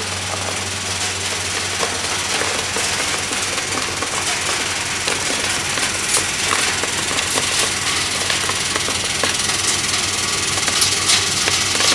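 Peanut skin peeling machine for half kernels running: a steady electric motor hum under a dense rattle, with sharp ticks as peeled peanut halves drop from the outlet chute into a tray.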